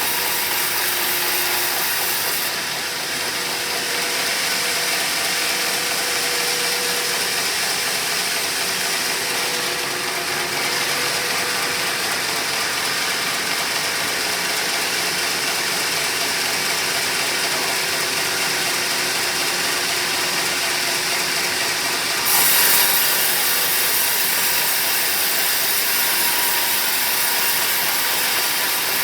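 Sawmill saw blade cutting lengthwise through a teak log, a continuous mechanical grinding and rasping. It turns louder and harsher about three-quarters of the way through.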